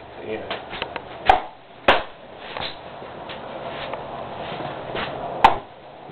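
Several sharp knocks and clicks, the three loudest about a second and a quarter, two seconds and five and a half seconds in, over a steady murmur of room noise.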